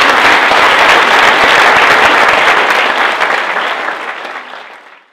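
An audience applauding, dense and steady, then fading out over the last second or so.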